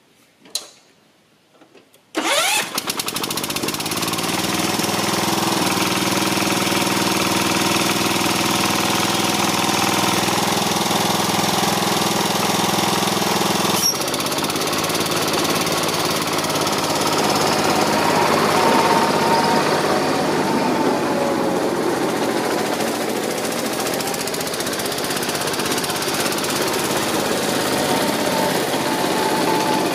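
John Deere 140 garden tractor's Kohler single-cylinder engine. After a click, it comes in suddenly about two seconds in and runs steadily as the tractor drives and mows, with a slight change in its note about halfway through.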